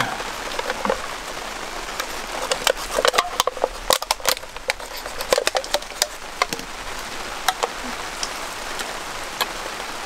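A small knife blade scraping and clicking against a thin aluminium drink can as the can is turned, cutting and scraping its rim to make a cup. It gives many irregular sharp clicks and scratches.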